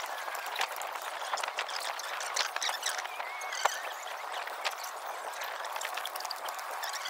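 Outdoor background noise with scattered taps and thuds of a person doing burpees on the ground beside the phone, and one sharper click about three and a half seconds in.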